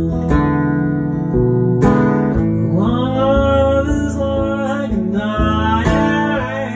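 A steel-string acoustic guitar strummed in a slow country ballad, with a man's singing voice coming in over it about two and a half seconds in and holding long, wavering notes.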